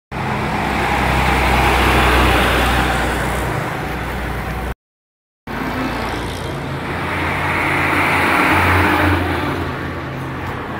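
Motor vehicles passing on a street, the traffic noise swelling as they go by, once about two seconds in and again around eight seconds. The sound cuts out completely for about half a second midway.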